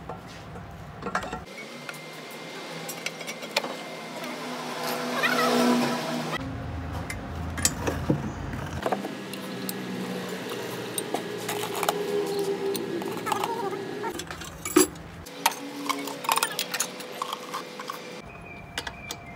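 Metal parts and hand tools clinking and knocking during workshop engine work, with many scattered sharp clicks.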